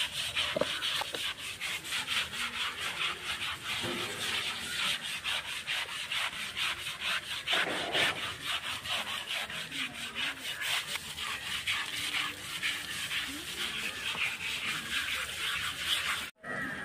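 A stiff hand brush scrubbing a wet elephant's hide during its bath: fast, rhythmic rasping strokes, kept up almost without a break.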